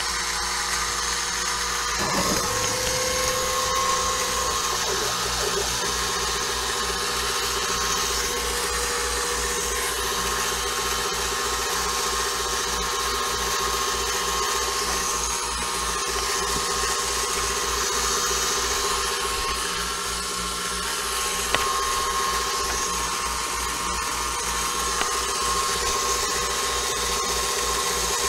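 CNC mini mill spindle running a 3/8-inch end mill at 2500 RPM through its milling program, a steady mechanical whine.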